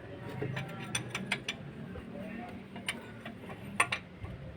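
Ratchet wrench clicking, with scattered sharp metal clicks and clinks of tools on the engine.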